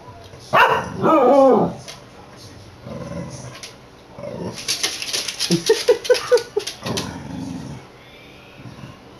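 Pembroke Welsh corgi "singing": drawn-out whining, howl-like calls that waver in pitch, the loudest about a second in. Around five to seven seconds in comes a breathy stretch with a quick run of short yips.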